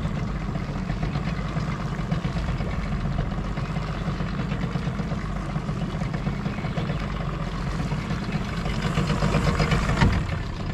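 Boat motor running steadily at low trolling speed, a steady low hum. It grows into a louder rush, with a single knock, near the end.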